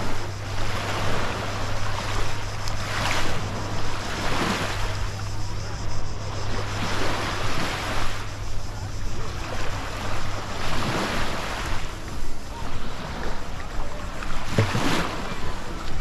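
Sea waves washing on the shore, with wind buffeting the GoPro's microphone in uneven gusts. A steady low hum underneath stops about two-thirds of the way through.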